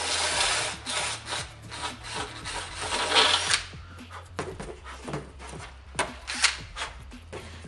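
Cordless drill with a step (uni) bit grinding through a fiberglass fairing panel for about three and a half seconds, opening a mounting hole up to fit a fastener receiver. This is followed by a few sharp knocks and rustles as the panel is handled.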